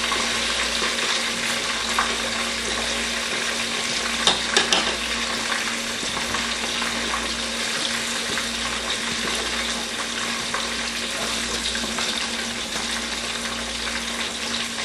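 Red snapper pieces frying in hot oil in a wok: a steady sizzle throughout, with a few light clicks about four seconds in.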